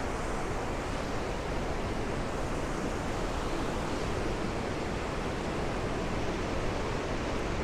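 Steady rush of white water at Huka Falls, where the Waikato River is forced through a narrow rock chasm.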